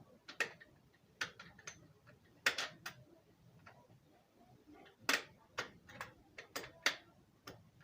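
Irregular sharp mechanical clicks and knocks from a motorcycle gearbox and drivetrain being shifted into fifth gear and turned by hand to rotate the piston.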